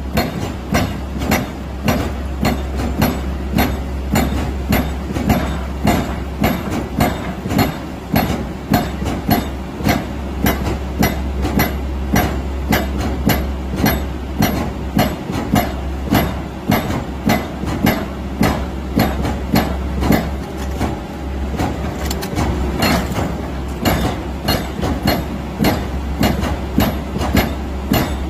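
JSC Ares A1000 hydraulic breaker (rock hammer) pounding rock, a steady run of sharp blows at about two to three a second, with a constant low hum underneath.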